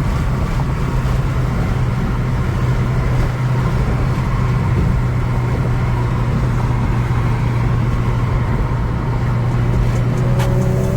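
Steady engine and road drone of a car driving at an even speed, a constant low hum with no change in pitch.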